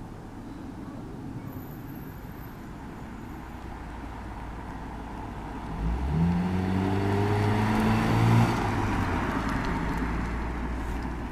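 Car engine idling, then revving about six seconds in: the engine note rises and grows louder, peaks a couple of seconds later, then eases off.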